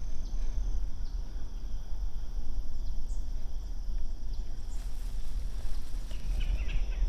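Field insects, crickets, chirping steadily over a loud low rumble, with a brief rustle near the end.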